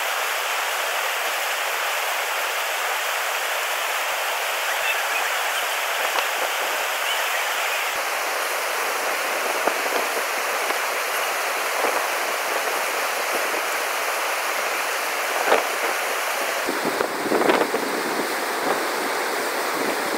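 Rushing whitewater of a river's standing wave: a steady, dense hiss of churning water, with a few brief louder surges near the end.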